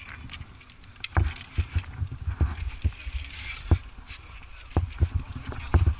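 Irregular clicks, knocks and low thumps of a climber moving in a crack: climbing gear on the harness clinking and the chest-mounted camera bumping against body and rock.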